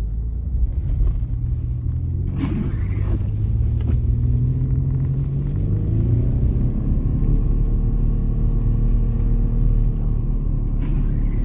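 Car engine running while driving on a snowy road: a steady low rumble, with the engine note shifting in pitch about halfway through.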